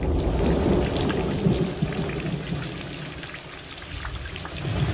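Rain falling with a low rumble of thunder that swells near the start, eases off in the middle and builds again near the end.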